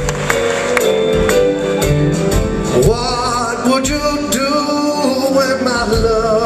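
A live band with electric guitar, keyboard and drums plays while a man sings into a microphone. His voice comes in with a wide vibrato about three seconds in, over steady drum hits.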